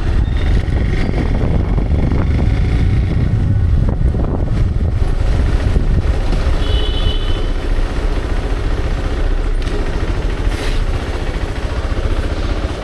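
Motorcycle riding at road speed: a steady low engine drone mixed with rushing noise. A brief high steady tone sounds about seven seconds in.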